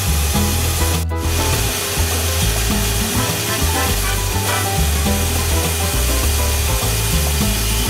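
Bandsaw blade cutting through a thick English walnut stock blank: a steady rasping of the blade in the wood, briefly broken about a second in. Background music plays underneath.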